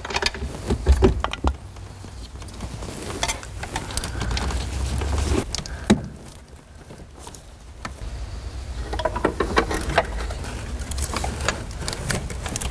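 Plastic electrical connectors and wiring being worked loose under a pickup's dashboard: scattered clicks, snaps and rattles of plastic and wire, over a low rumble.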